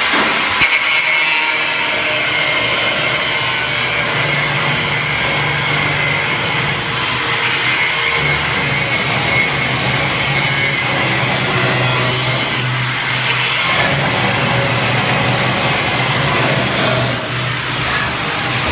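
Angle grinder fitted with a cutting disc, cutting into steel plate along a fillet weld and its tack welds. It runs as a loud, steady, hissing grind, with two short dips about seven and thirteen seconds in.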